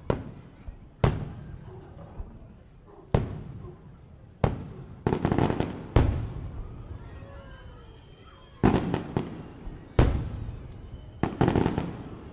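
Aerial fireworks bursting overhead: single sharp booms every second or two, each trailing off in echo, with two quick runs of crackling reports, one near the middle and one near the end.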